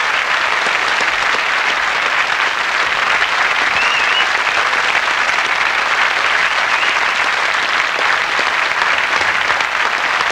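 Studio audience applauding steadily and loudly.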